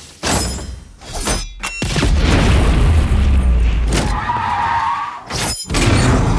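Layered action-film crash effects: a few sharp hits, then a long, loud crash with a deep rumble. A wavering tyre squeal comes about four seconds in, and another heavy boom near the end.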